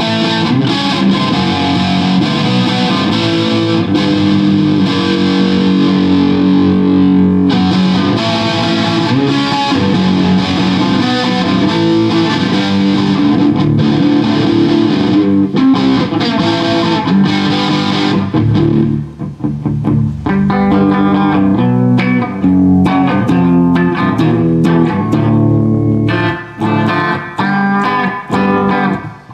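Electric guitar played through distortion, with dense chords held and ringing. About two-thirds of the way in, the playing thins to separate picked notes with short breaks between phrases.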